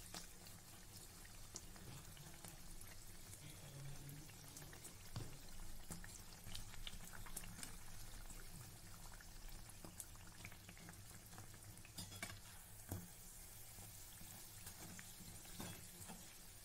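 Faint sizzling of naan puri deep-frying in hot oil in a kadai, with a few light clicks scattered through it.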